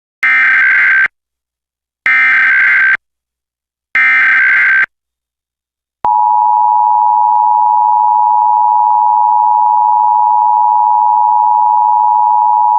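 Emergency Alert System SAME header: three one-second bursts of warbling digital data tones about two seconds apart. About six seconds in comes the loud, steady two-tone EAS attention signal, the alarm that opens a nationwide EAS test.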